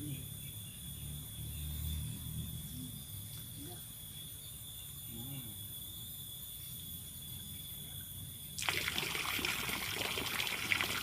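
Low rumble, then about nine seconds in a steady splashing rush of running water starts suddenly.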